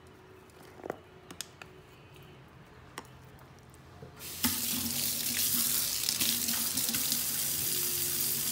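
Kitchen tap running into a sink from about four seconds in as a soapy makeup brush is rinsed under it, with a low steady hum beneath the water. Before that there are only a few light clicks.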